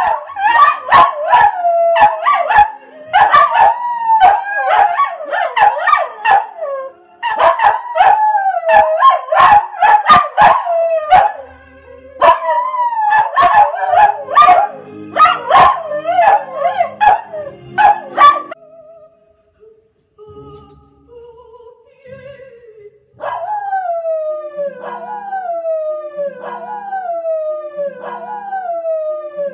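A dog howling along to operatic music, its wavering howls mixed with the singing and beat. After a short pause about two-thirds of the way in, it gives a run of short falling howls, about one a second.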